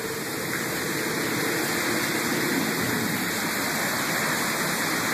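Heavy rain pouring down on pavement and puddles in a thunderstorm downpour, a steady, even hiss.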